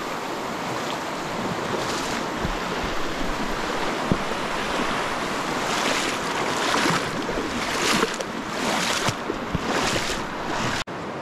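Virgin River water rushing steadily, with several louder splashy swishes in the second half from wading through it. A very brief break comes just before the end.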